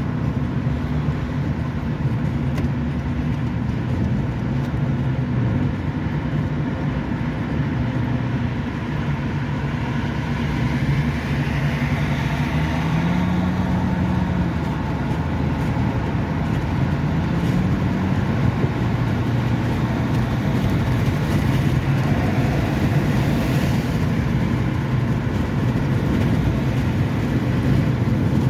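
Motor vehicle traffic on a road: a steady engine hum and tyre noise, the engine pitch slowly rising and falling.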